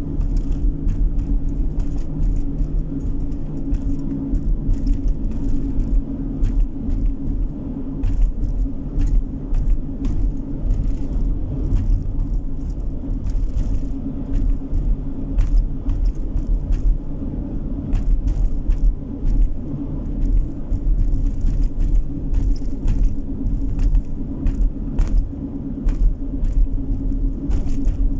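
A car driving at steady speed, heard from inside the cabin: a constant low rumble of road and engine noise with a steady hum, and scattered faint small clicks and rattles.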